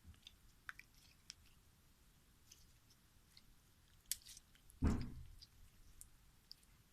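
Clear slime being squished and stretched by hand: scattered small sticky clicks and pops, with one louder, deeper squelch about five seconds in.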